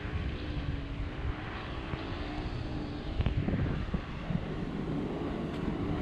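Wind buffeting the microphone over the drone of the towing speedboat's engine, its pitch wavering slowly up and down.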